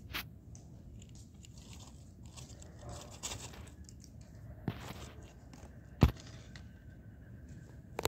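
Dry leaf litter rustling and crunching over a low rumble, with a few sharp clicks, the loudest about six seconds in.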